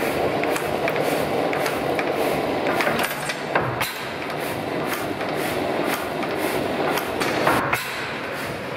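Old Tangye stationary petroleum engine running steadily. Its valve gear clicks in a regular rhythm of about two clicks a second over the engine's steady mechanical clatter.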